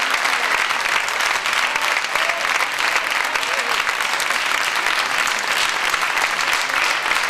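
Concert audience applauding: a dense, steady run of clapping, with a few faint voices in the crowd.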